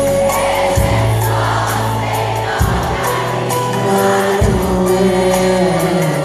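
Live Persian pop concert heard from the audience: a band playing with deep bass notes that change every couple of seconds and steady cymbal strokes, a male singer on a microphone, and the crowd singing along.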